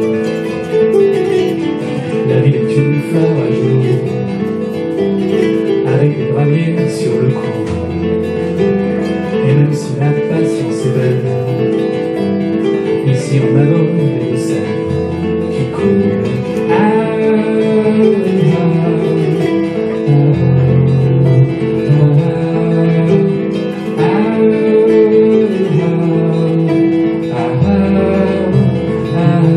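Kora and acoustic guitar playing together live, with interlocking plucked notes over a low bass line that comes and goes, and a man singing over them.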